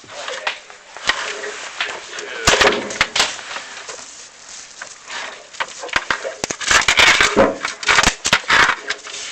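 Scraping and knocking inside a masonry chimney flue, with irregular sharp clicks and rustling, loudest about two and a half seconds in and again past the middle. Likely the inspection camera rubbing the glazed flue walls while loose debris left from sweeping shifts and falls.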